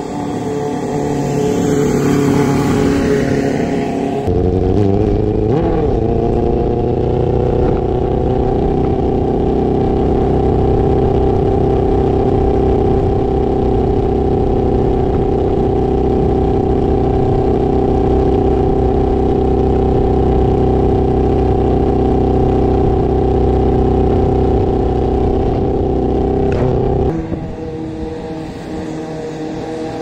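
Honda CBR600 F4i's inline-four engine running at a steady engine speed as the bike rolls along, with a brief swell and dip in revs about five seconds in. The sound changes abruptly about four seconds in and again near the end.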